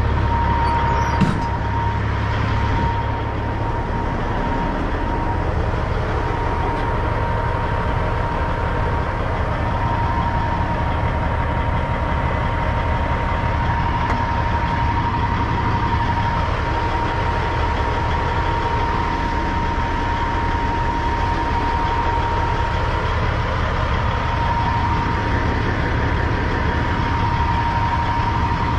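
Peterbilt 379 semi truck's diesel engine running steadily with a low rumble, a steady high whine over it. A brief click about a second in.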